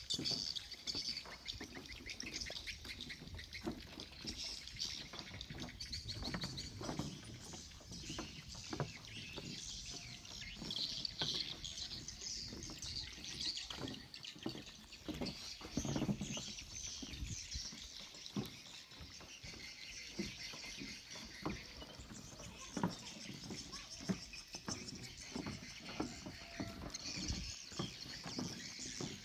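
Footsteps knocking on loose, weathered wooden boardwalk planks, with birds chirping.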